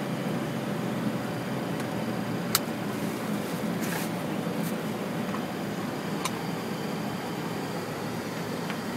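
Steady rushing hum of a Boeing 737-300 cockpit on final approach: airflow and engine noise. A few brief clicks stand out, the sharpest about two and a half seconds in and another around four seconds.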